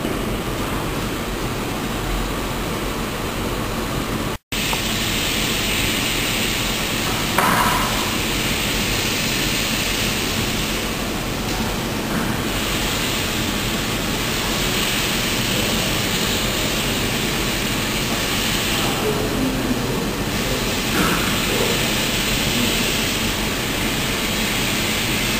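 Steady, even background noise, dropping out for an instant about four seconds in, with a short brighter sound near eight seconds.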